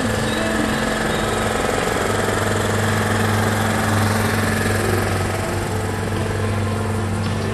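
GT racing car's engine idling steadily, a low even hum that holds its pitch.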